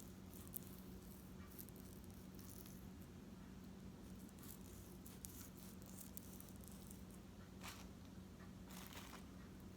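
Near silence: a faint steady hum with a few soft clicks and two brief rustles near the end.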